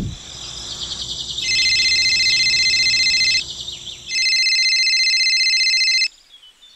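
Mobile phone ringtone: two rings of about two seconds each, a high, fast-trilling electronic ring with a short pause between.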